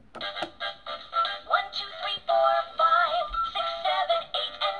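Children's electronic learning laptop toy playing a children's song with synthetic singing through its small built-in speaker. The song starts just after a key is pressed.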